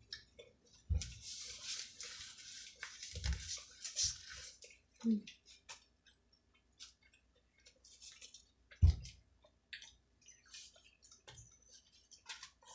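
Close-up eating and food-handling sounds: scattered small clicks and mouth noises, a rustling hiss in the first few seconds, and a few dull thumps on the table, the loudest about nine seconds in.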